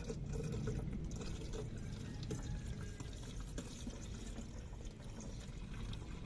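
Water being poured into a car's cooling system, a steady pouring and filling sound as it is topped up to full.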